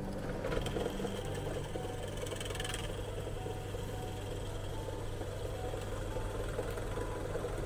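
Bench pillar drill running with a steady hum, its bit boring down into a small block of wood. The cutting adds a brighter hiss during roughly the first three seconds.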